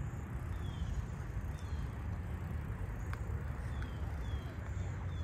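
Wind noise on the microphone, with a bird repeating short falling chirps in the background.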